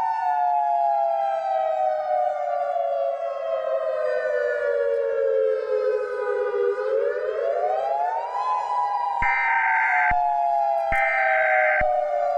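A civil defense-style siren wailing in two close tones: it falls slowly in pitch for about six seconds, rises again, then starts falling once more. About nine seconds in, two one-second bursts of Emergency Alert System header data tones sound over it, under a second apart.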